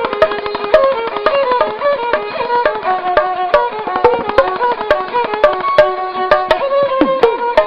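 Sarangi playing a melody with slides between held notes, over quick, sharp strokes of the dhadd, the small hourglass drum of a dhadi group.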